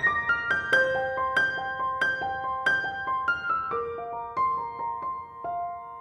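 Background music: a piano melody of single struck notes, a few a second, each ringing out and dying away.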